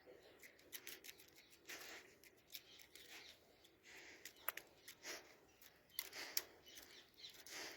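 Faint scattered clicks and short scuffs, irregular and close together.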